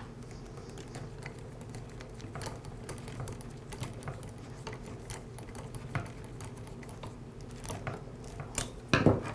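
Faint, irregular light clicks and ticks from a screwdriver with a socket bit turning the internal screw that holds a string trimmer's clutch drum, over a low steady hum. A louder clunk comes near the end.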